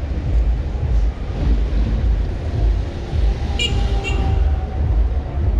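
Steady low rumble of city road traffic on a wet street, heavy buses among it, with a faint hiss over it. Two brief high-pitched squeaks about three and a half and four seconds in.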